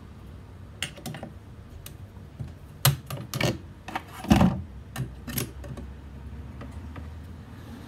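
Metal combination wrench clicking and knocking against the cutting-head parts of a Stihl pole pruner as nuts and covers are worked by hand, in irregular bursts with the loudest knock about four seconds in.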